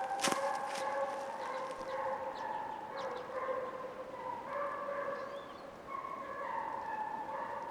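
Hunting hounds giving voice in a long, drawn-out chorus as they chase a hare on its trail. A sharp click comes about a third of a second in.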